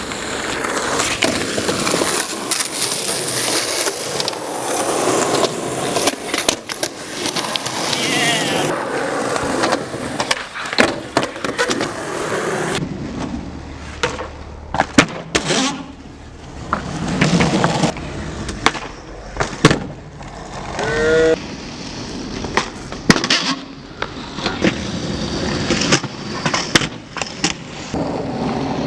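Skateboard wheels rolling, with many sharp clacks of the board popping, flipping and landing as tricks are attempted.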